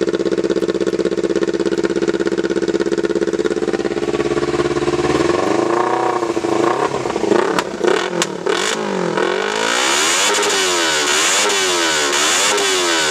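Kawasaki Versys-X 300 parallel-twin engine running straight out of its bare exhaust pipe with the silencer removed. It idles steadily for about five seconds, then is revved in a string of quick throttle blips that rise and fall, with a few sharp cracks around the eight-second mark.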